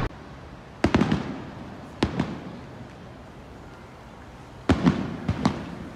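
Fireworks bursting overhead: about eight sharp bangs with echoing tails. The bangs come in three clusters, about a second in, at two seconds, and near the end.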